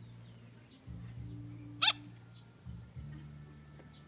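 A dog gives one short, high yelp about two seconds in, over a low steady hum.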